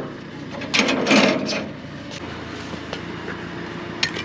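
An engine running steadily at low speed. A brief clatter comes about a second in, and a short sharp knock near the end.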